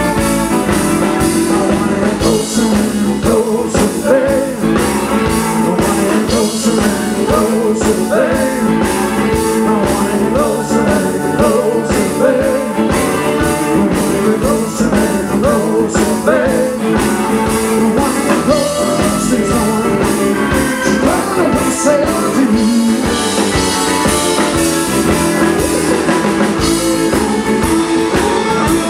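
Live rock'n'roll band playing loudly: electric guitars over bass and drums, with a lead line bending and weaving on top.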